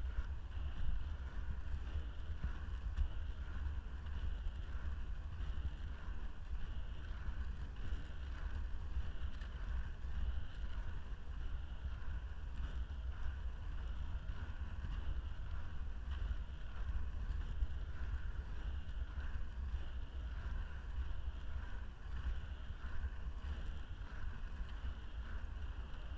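Inline skate wheels rolling over asphalt at speed, a steady low rumble.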